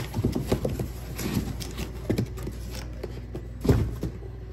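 Cardboard box and packaging being handled: rustling, scraping and light knocks, with one louder thump near the end as a small box is set down on the bench.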